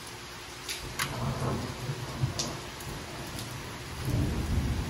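Heavy rain falling steadily with low rolling thunder, the rumble swelling about a second in and again near the end. A few sharp ticks stand out above the rain.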